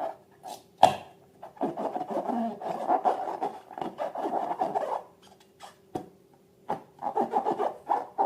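Balloons and slime being worked by hand: rubbing and scraping in a long run of quick strokes, with sharp clicks before it and more rubbing near the end.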